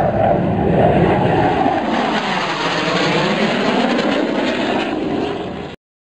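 Loud engine noise with a pitch that sinks and then climbs again, starting and cutting off abruptly.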